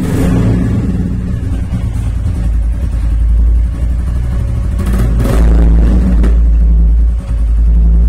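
Royal Enfield Classic 350's single-cylinder engine idling steadily just after being started, heard at the exhaust silencer; it gets somewhat louder about five seconds in.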